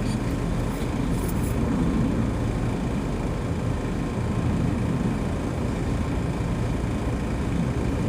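Steady low drone of an engine or machinery running, with a few faint light clicks in the first second or two.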